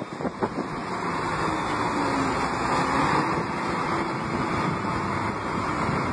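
Diesel engine of a Grove GMK7450 all-terrain mobile crane running steadily.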